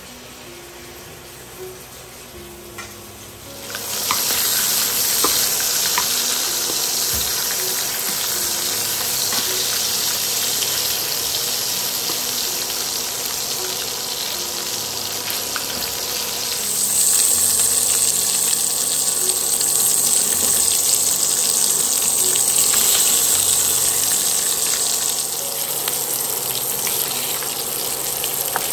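Sausages, bacon and ham frying in a small aluminium pan on an induction hob. A steady sizzle starts about four seconds in and grows louder and brighter about halfway through.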